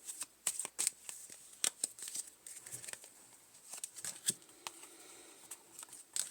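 Playing cards being shuffled by hand: a rapid run of crisp card snaps that thins out after about two seconds, with a few more a little past the middle.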